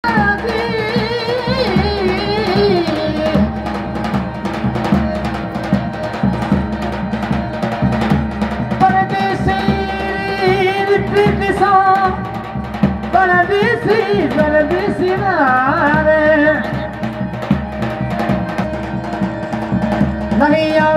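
Rajasthani folk music: a voice singing a wavering melody over a steady held drone and a hand-drum beat.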